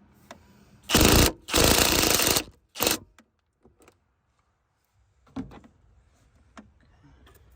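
Ratchet wrench loosening a car battery terminal nut: three bursts of rapid clicking in the first three seconds, the longest just under a second, then a few faint clicks and taps.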